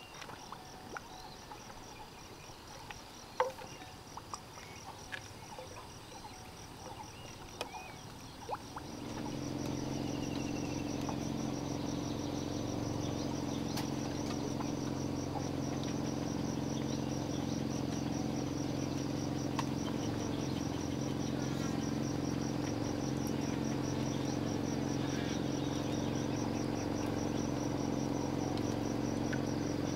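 Insects trilling in a steady, pulsing chorus, with a few small clicks in the first part. About nine seconds in, a steady low hum joins and the whole gets louder.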